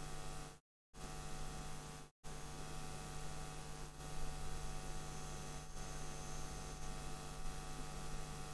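Steady electrical mains hum with hiss, the noise floor of the recording chain, cut twice by brief dropouts to dead silence in the first two seconds or so.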